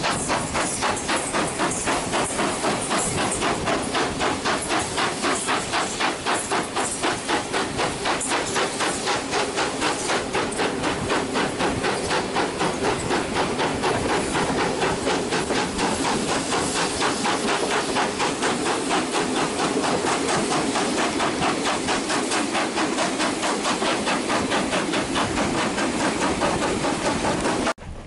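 Steam locomotive working hard, heard from the carriages behind: a rapid, even chuffing of exhaust beats with a steady hiss of steam. It breaks off abruptly near the end.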